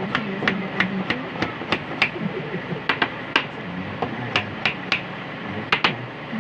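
Hammer tapping on wood: sharp knocks about three a second for the first two seconds, then scattered single and paired knocks. It is knocking the glued parts of a cabinet door together.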